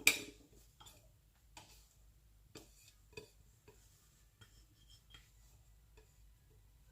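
A utensil knocks once sharply against a mixing bowl, then makes light, irregular taps and clinks about every half second to a second while beaten egg whites are added to cake batter.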